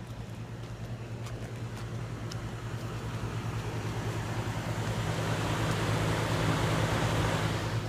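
Outdoor air-conditioner condenser unit running: a steady low hum with a broad rushing noise that grows louder through the second half and then drops off suddenly.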